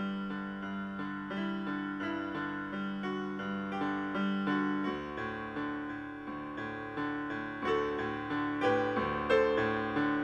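Solo piano music: a steady run of evenly paced notes, played as background music.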